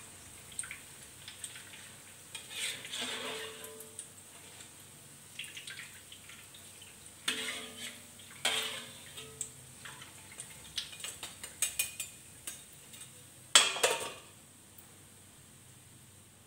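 Metal ladle and spatula clinking and scraping against a steel wok and a metal bowl as fried corn fritters are lifted out of the oil, over faint sizzling. The clatter comes in scattered bursts, the loudest a sharp knock about three-quarters of the way through.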